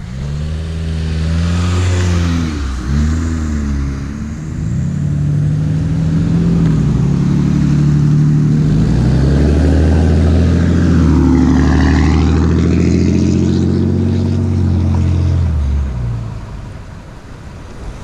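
A motor vehicle accelerating through the intersection at close range, its engine pitch rising and dropping with gear changes, then passing by and fading away near the end.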